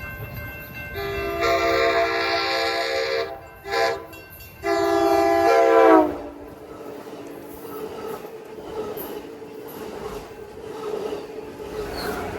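Locomotive air horn sounding a long blast, a short one and another long one, the chord dropping in pitch at the end of the last blast as the locomotive passes. The train then rolls by with a steady rumble and wheel clatter on the rails.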